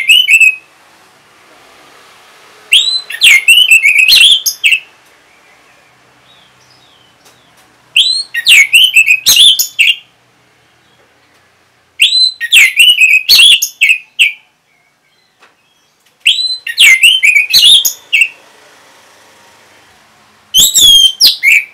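Orange-headed thrush singing: loud phrases about two seconds long, repeated every four seconds or so with quiet gaps between. Each phrase opens with a sharp upward-sweeping note and runs into a quick jumble of whistled notes.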